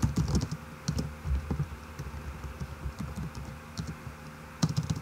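Typing on a computer keyboard: uneven runs of key clicks with short pauses, a quick flurry near the start and another burst near the end.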